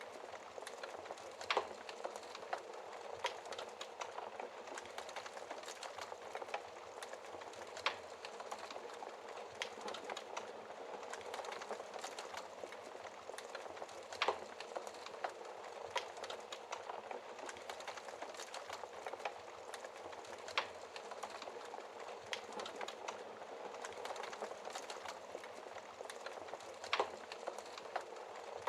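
Wood fire burning in a fireplace, crackling steadily with sharp pops every second or so; the loudest pops come about a second and a half in, halfway through, and near the end.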